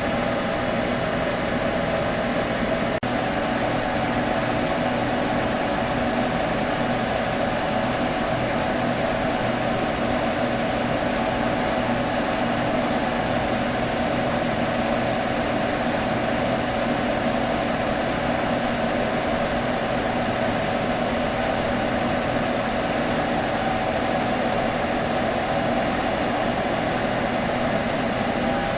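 Computer humming steadily: a constant, even whir that does not change.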